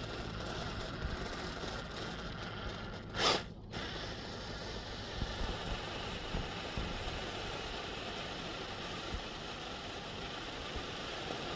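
RC rock crawler's motor and drivetrain running steadily as it crawls slowly up through snow. A short loud rush of noise cuts in about three seconds in.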